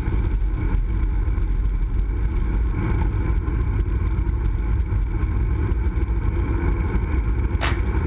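Wind buffeting the microphone of a handlebar-mounted camera on a moving road bike, with a steady low rumble from the tyres rolling on asphalt. A single sharp crack comes near the end.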